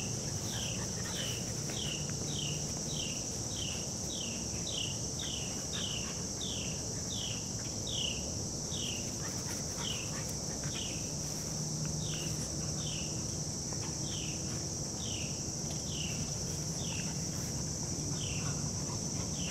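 Steady, high-pitched drone of a summer insect chorus, with short falling chirps repeated about twice a second that become sparser after the middle. A faint low hum runs underneath.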